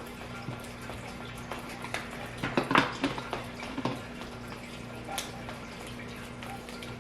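Glue slime being stirred in a container: wet squishing with scattered clicks of the stirrer against the sides, loudest in a short flurry about two and a half to three seconds in.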